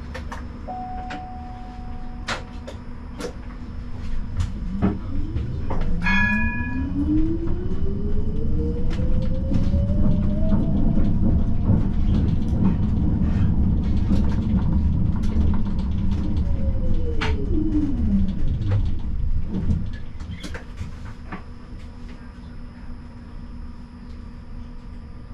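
Siemens Combino tram's electric traction drive whining, rising in pitch as the tram pulls away about five seconds in, holding, then falling in pitch as it slows near the end. Under it runs a steady rumble with the clicks of wheels on rails, and a short chime rings as it sets off.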